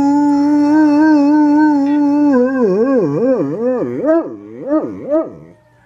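A dog howling: one long steady note that begins to waver, then swings up and down in pitch in wide, quick warbles, about two or three a second, before stopping near the end.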